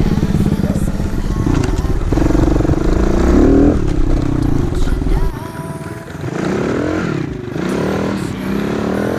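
110cc four-stroke pit bike engine revving hard while being ridden. The pitch climbs from about two seconds in, drops sharply a little after five seconds, then rises and falls in repeated throttle blips.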